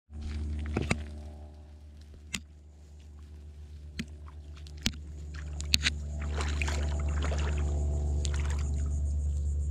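A motor running steadily with a low hum, with a few sharp clicks in the first half and a rising hiss after about six seconds.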